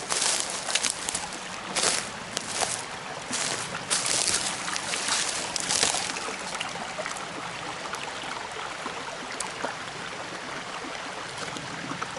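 Footsteps through brush along a brook, a quick series of rustling, crunching steps for about the first six seconds, then the brook running steadily.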